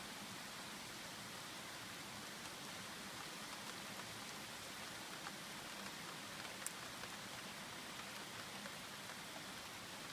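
Steady rain falling, an even hiss with scattered faint drop ticks and one sharper tick about two-thirds of the way through.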